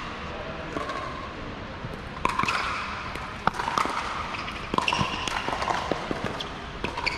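Pickleball rally: paddles hitting the hard plastic ball, a string of sharp pops with the ball bouncing on the court in between, the loudest hit about halfway through.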